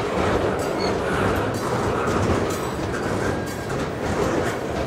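Freight train of loaded centerbeam lumber flatcars rolling past, a steady rumble with the steel wheels clacking on the rails.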